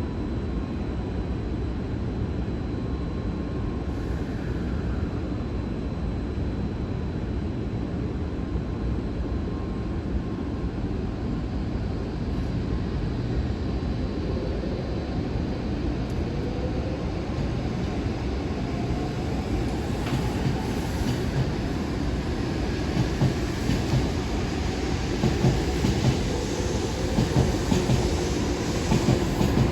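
Shinkansen train pulling out of the platform: a steady low rumble, with the motors' whine rising in pitch as it gathers speed and wheel clatter growing louder near the end.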